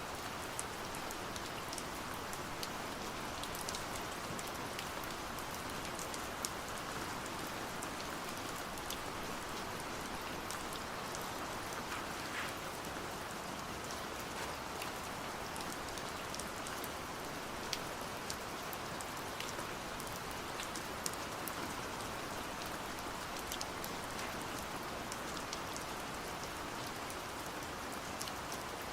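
Steady rain falling, with a continuous hiss and many scattered individual drop ticks.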